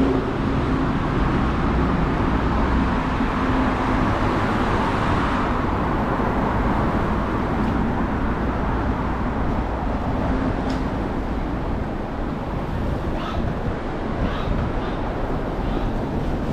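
Steady city road traffic, louder and brighter for about the first five seconds, with a few faint short high sounds later on.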